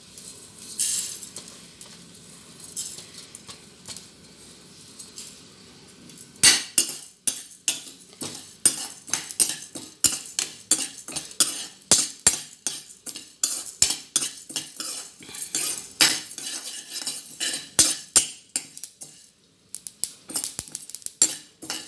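Metal spoon scraping and clinking against a non-stick kadai as chana dal, urad dal and rice are stirred while roasting. It is quieter for the first few seconds, then about six seconds in turns to quick repeated scrapes and clinks.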